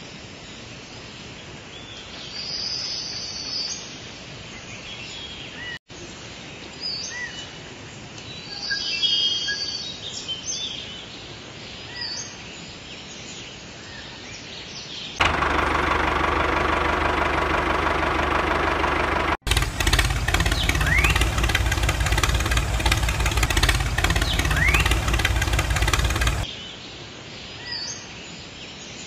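Outdoor ambience with birds chirping, then about halfway through a loud, steady machine running sound, engine-like, cuts in abruptly, breaks off for a moment, runs on for several more seconds and stops suddenly, leaving the bird-filled ambience again.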